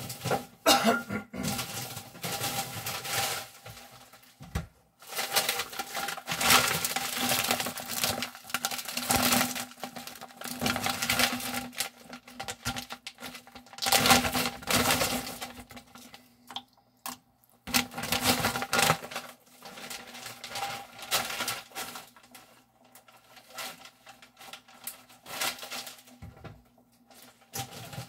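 Water heating in a glass saucepan on an electric ceramic hob, crackling and pattering in irregular bursts of a second or two as it comes up toward the boil, over a faint steady hum.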